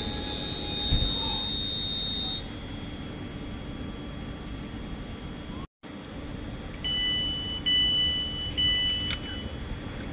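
Electric multiple unit standing at a platform: a high steady whine stops about two seconds in, and near the end a repeated electronic door-open beeping sounds for about two seconds as the doors unlock and open. A steady low hum from the stationary train runs underneath.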